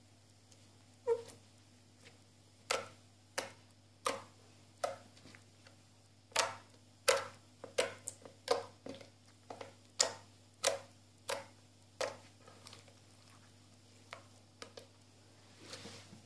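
Clear slime being squeezed and poked, giving a string of short wet pops and clicks, one or two a second at an uneven pace, over a faint steady low hum.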